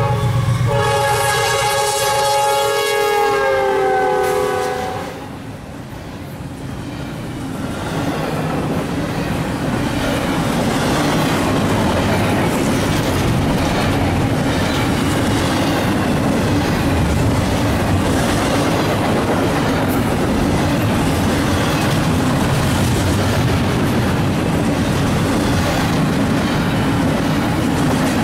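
Freight train locomotive horn sounding a long chord that dips in pitch and stops about five seconds in as the locomotives pass. Then the train's double-stack container cars roll by with steady wheel clatter and rumble.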